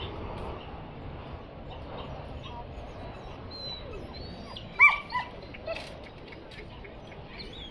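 A dog gives three short, high-pitched barks in quick succession, the first clearly the loudest, over steady outdoor background noise.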